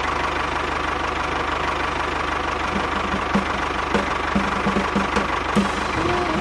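Tractor engine running steadily with a fast, even low chugging.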